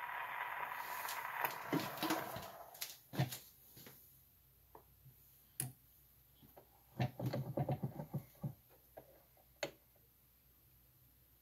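Surface hiss of a shellac 78 on a Victor Victrola fading out as the record ends, followed by scattered clicks and knocks as the tone arm and machine are handled, with a quick cluster of them about seven to eight seconds in.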